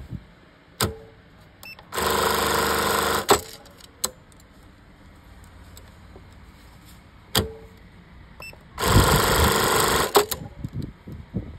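Industrial lockstitch sewing machine running in two short bursts of stitching, each about a second and a half long, with several sharp clicks between them.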